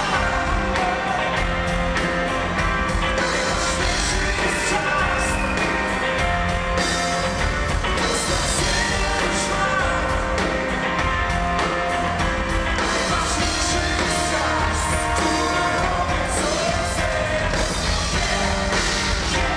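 Live rock band playing with a steady drum beat, electric guitar and keyboard, and a singer over it.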